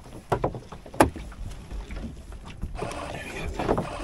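Rope and fittings being worked aboard a small sailing boat as the spinnaker is hoisted: scattered knocks and clicks, with a sharp knock about a second in, then rustling of rope and sailcloth.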